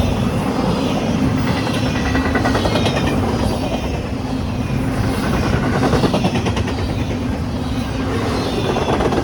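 Train rolling past close by: a steady rumble of wheels on the rails with a fine repeating clatter and a steady hum. Heavy low wind noise buffets the microphone.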